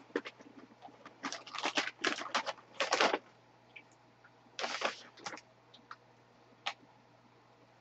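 A puffed corn snack being eaten and its plastic bag handled: quick clusters of sharp crackles for the first three seconds and again about five seconds in, then only an odd click.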